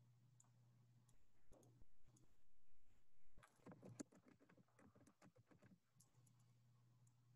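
Faint computer keyboard typing: a few scattered clicks, then a quick run of keystrokes from about three and a half seconds in, lasting about two and a half seconds, over a steady low hum.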